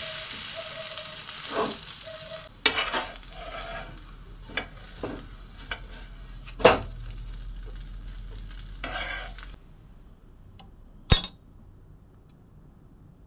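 Beetroot rava dosa sizzling in oil on a dosa tawa, with a steel spoon scraping and knocking against the pan as the dosa is loosened and lifted. The sizzle stops suddenly about ten seconds in, and a single sharp clack follows a second and a half later.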